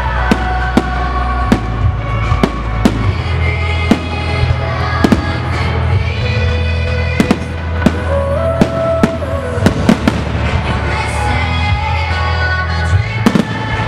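Aerial firework shells bursting in a pyromusical display: a loud, irregular run of sharp bangs, about one or two a second, over loud music with a steady bass.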